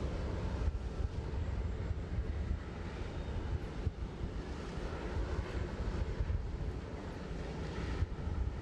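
Steady jet airliner noise from a Boeing 747-400 parked on the apron: a continuous low rumble with a hiss above it.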